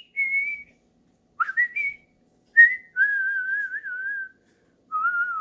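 A person whistling a few notes: a short one, a quick rising pair, then two long held notes that waver slightly in pitch.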